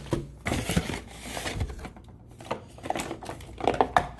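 Cardboard and plastic product packaging being handled: irregular clicks and taps with rustling, a longer sliding scrape about a second in, and a few sharper clicks near the end.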